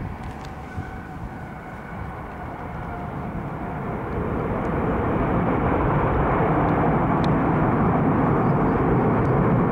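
Boeing 737-800's CFM56 turbofan engines: a jet roar that builds over about five seconds, then holds steady and loud.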